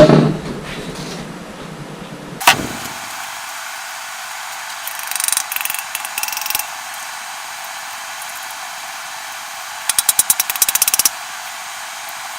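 Workshop handling noises: a loud knock at the start and a sharp click a couple of seconds in, a rustle around five to six seconds, and a quick run of rattling clicks about ten seconds in, like tools being moved.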